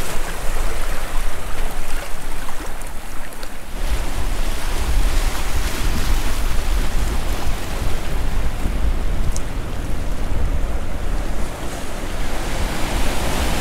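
Sea waves washing and breaking over rocks on a rocky shore, with wind rumbling on the microphone, heavier from about four seconds in.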